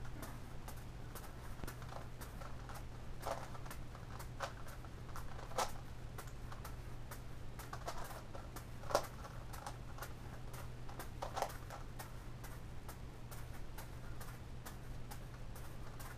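Irregular plastic clicking and clattering of a Gigaminx puzzle being turned by hand, mixed with soft catches of juggling balls, over a steady low hum. A few louder clattery turns stand out now and then.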